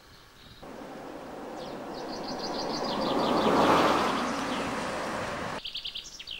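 A vehicle passing close by: its noise swells to a peak a little past the middle and fades, then cuts off suddenly near the end. Small birds chirp in quick series over it and just after it.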